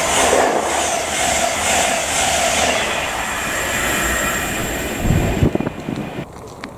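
LNER express passenger train passing at speed, its wheels and bogies running over the rails in an even, pulsing rush that fades as the last coach goes by. A short low rumble follows about five seconds in.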